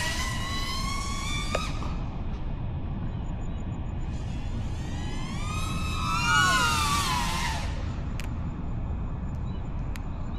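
Motors of a 5-inch FPV racing drone whining, their pitch rising and falling as the throttle is punched and cut through the flip manoeuvres. One burst fades out about two seconds in, and a louder rise-and-fall comes about halfway through.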